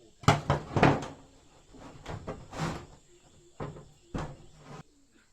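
A series of irregular knocks and clatters, about seven in all, the loudest two within the first second.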